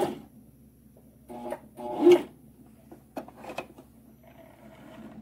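Brother XM2701 electric sewing machine stops running at the start, then gives two short bursts of stitching about a second apart, the second louder, followed by a sharp click and another brief burst, finishing off a back stitch.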